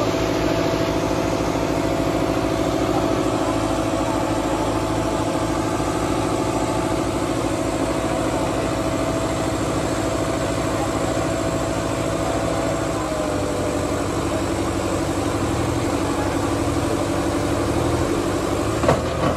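Diesel engines of a Kubota and a New Holland tractor, hitched back to back for a tug-of-war pull, running steadily at an even speed. The engine note drops slightly about two-thirds of the way through, and there is a brief knock near the end.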